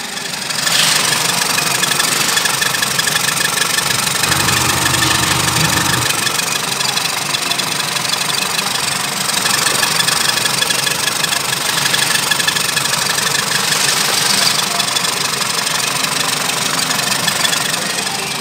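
Nissan YD22DDTi 2.2-litre four-cylinder turbodiesel idling steadily, running with the bonnet open.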